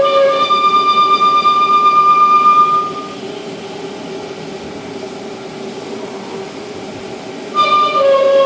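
A cutting tool squealing as it turns a large 316 stainless steel bolt, a loud whistle-like screech. It stops about three seconds in, leaving a quieter steady cutting noise, then cuts back in loudly near the end and steps down to a lower pitch.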